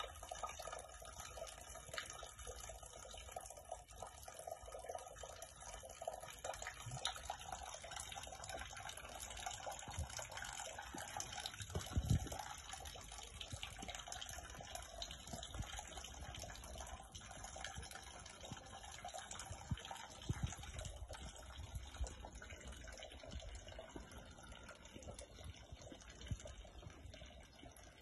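Water trickling from a stone fountain's spout into its basin: a steady, fairly faint splashing with small drips. There are low thumps about twelve seconds in and again near twenty seconds.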